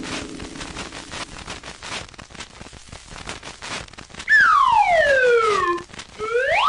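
Cartoon sound effects: the hum of a gong dies away under scattered crackling clicks, then a loud whistle glides down in pitch for about a second and a half, and a shorter whistle slides quickly back up near the end.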